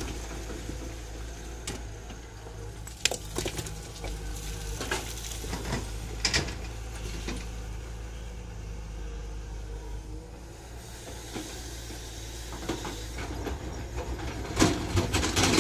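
Tata Hitachi EX200LC excavator's diesel engine running steadily while its steel bucket scrapes and knocks against rock and dirt, with scattered clatters and a louder burst of rock clatter near the end as the bucket digs into the rubble.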